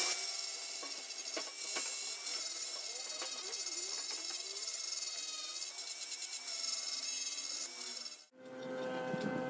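A hand tool scraping and rubbing against wood, steady and continuous, then cutting off sharply near the end.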